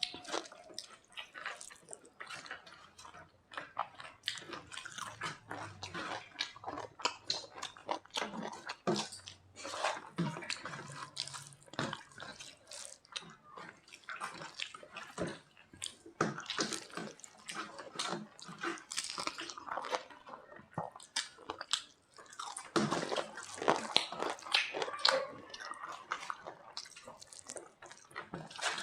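People eating dal and pakoras: wet squelching and smacking of food and mouths, with chewing and many small irregular clicks.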